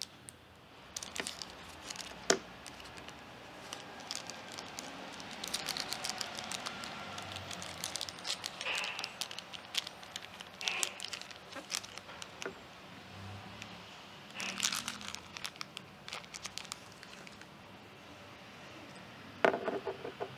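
Clear plastic bag crinkling and crackling as a Canon LP-E17 camera battery is unwrapped by hand. Near the end comes a louder hard tap as the battery is set down on a wooden tabletop.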